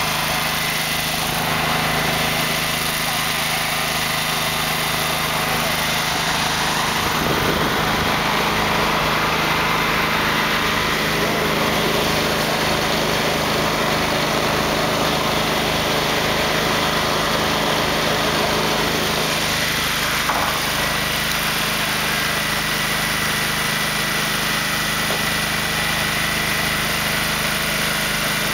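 Engine of a heavy-haulage modular trailer rig running steadily as it moves a long load, an even hum that holds at one level throughout.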